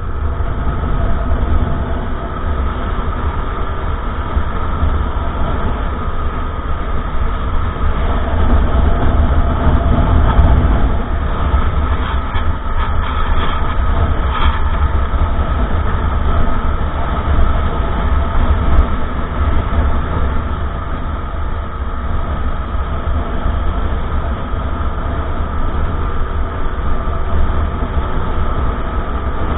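Honda Monkey minibike's small single-cylinder four-stroke engine running steadily while riding, under heavy low wind rumble on the action camera's microphone.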